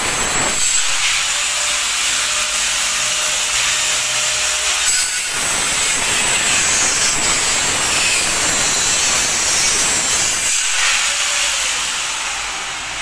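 A power tool running steadily in the house, a loud harsh hiss with brief dips about five and ten and a half seconds in.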